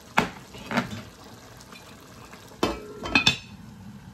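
Dishes and cutlery clinking and knocking: a couple of sharp knocks early, then a quick cluster of knocks near the end, the last ones with a short metallic ring.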